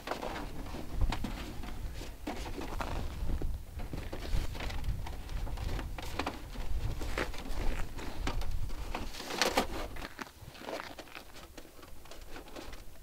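Thin stainless steel stove chimney pipe being handled as wire rings are slid and pushed over it: scattered light metallic clicks and scrapes at irregular times, over a low rumble.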